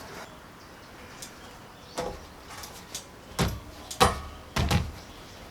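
A few dull thumps and knocks, the loudest about four seconds in, followed by a short run of thumps just before the end.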